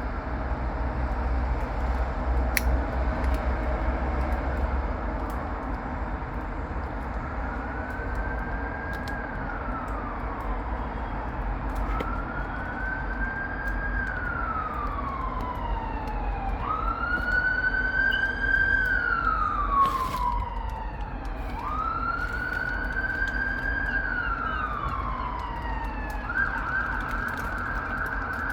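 UK emergency vehicle siren on its wail setting: slow sweeps that rise quickly, hold, then fall, getting louder as it approaches, switching to a fast yelp near the end. Road traffic rumbles underneath.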